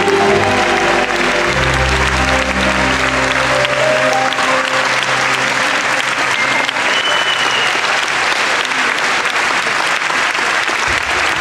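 Audience applauding steadily while the waltz music plays out and stops about four seconds in.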